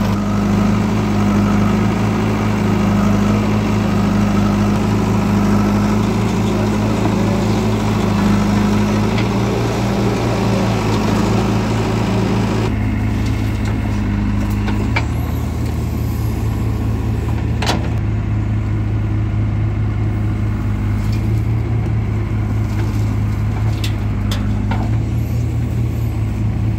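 Diesel engines running steadily: a tractor and a JCB 3DX backhoe loader idling and working. About 13 seconds in the engine sound changes, and a few sharp knocks follow.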